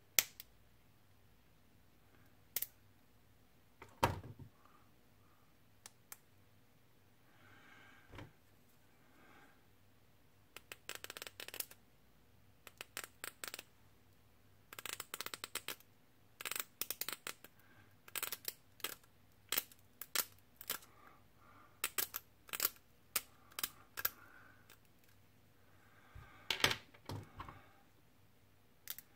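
Flush sprue cutters snipping small plastic model parts: a series of sharp clicks, sparse at first and coming in quick clusters from about a third of the way in, with soft scraping between cuts as the part is trimmed and handled.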